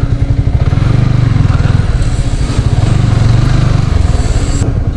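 Yamaha R15 V3's single-cylinder engine running while the bike is ridden, a fast, steady low pulse of firing strokes.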